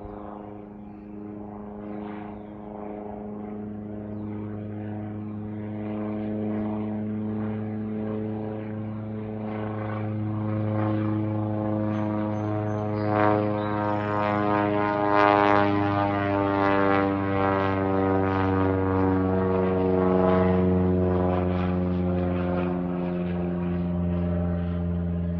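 Small propeller plane flying overhead, its engine drone growing louder as it approaches, then its pitch sliding gently down as it passes.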